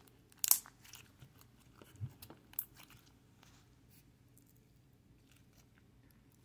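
Slime being squeezed and kneaded by hand, giving wet clicks and pops as air pockets burst: the loudest pop comes about half a second in, a few more follow around two seconds in, then only faint crackles.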